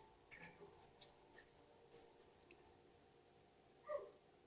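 Butter slime being kneaded by hand: faint, scattered sticky clicks and crackles as the dough is pressed and pulled.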